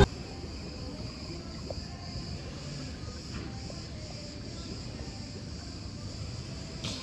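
Steady high-pitched chorus of insects in the trees.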